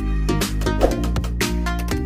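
Upbeat instrumental background music with a steady beat.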